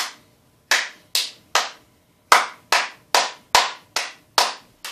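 A child clapping out the rhythm of a song with her hands: about a dozen single sharp claps, two or three a second, with a short pause about two seconds in.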